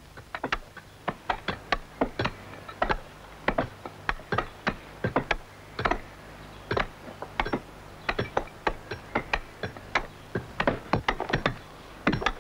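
Sandstone quarrymen's pick-hammers (Schrothammer) striking rock to drive the wedge groove at the foot of a grindstone blank: an irregular run of sharp knocks, about three or four a second, over a faint low hum.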